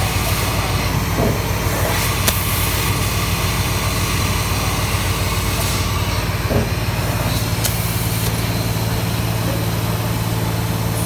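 CNC laser cutting machine running: a steady machine hum and noise, with two sharp clicks, one about two seconds in and another near eight seconds.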